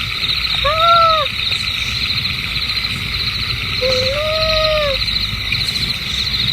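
A steady, fast-pulsing trill of insects, with two hoot-like animal calls over it, each rising and then falling in pitch: a short one about half a second in and a longer one about four seconds in.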